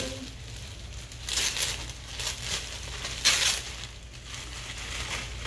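Clear plastic packaging bag crinkling as it is pulled and torn open by hand, in several bursts, the loudest about three seconds in.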